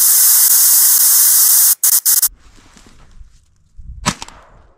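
A loud, steady hiss that starts and stops abruptly, lasting about two seconds, then a single shotgun shot about four seconds in.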